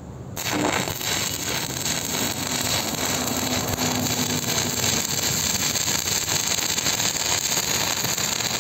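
Stick (shielded metal arc) welding on steel tank plate: the arc is struck about half a second in, then crackles and sizzles steadily as the bead is run along the seam.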